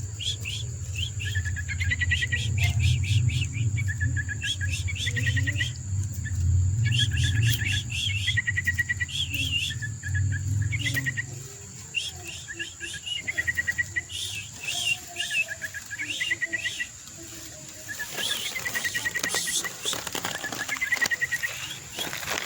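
Yellow-vented bulbul (trucukan) nestling begging: short, rapid runs of chirps repeated every second or two. A steady high insect drone runs underneath, and a low rumble stops about halfway through.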